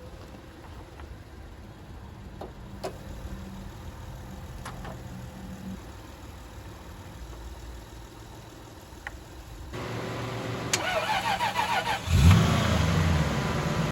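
A car's starter cranking the engine for a couple of seconds until it catches near the end, then running. A few sharp clicks come earlier.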